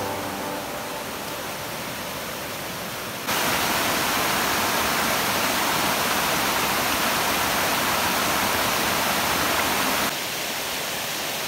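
Steady rushing of a waterfall. It jumps abruptly louder and brighter about three seconds in and drops back just as suddenly near the end.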